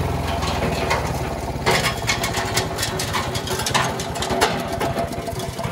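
Honda GX160 5-horsepower single-cylinder engine on a Kioritz KS50 wood shredder running at low idle, its separate firing beats clearly audible, with sharp clattering knocks through the second half.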